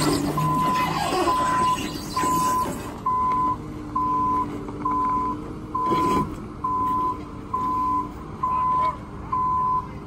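Forklift's reversing alarm beeping at a steady pace of about one beep a second, over the running of an engine. A single knock comes about six seconds in.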